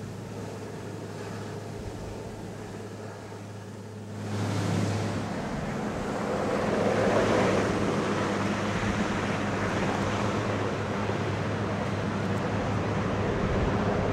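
Marine One, a Sikorsky VH-3D Sea King helicopter, running as it lifts off and climbs away, with a steady low hum from its rotors and turbines. About four seconds in, the sound jumps louder into a broad rushing noise that holds steady.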